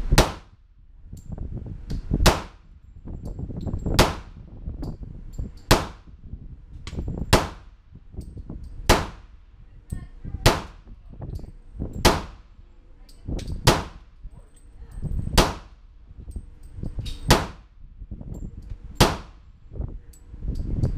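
Smith & Wesson SD40 .40 S&W pistol firing slow, deliberate single shots, about a dozen in all, spaced about a second and a half to two seconds apart. Each shot is sharp and rings briefly in the enclosed range lane.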